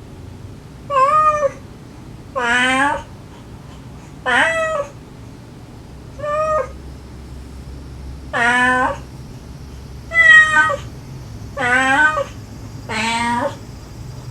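A mother cat calling gently and her kittens meowing back. About eight separate meows come one after another, roughly every second and a half to two seconds. Some are lower and rising, others higher.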